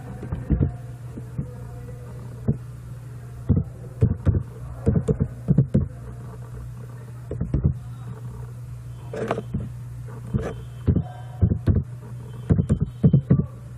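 Computer keyboard keys tapped in short irregular clusters as a password is typed, over a steady low electrical hum.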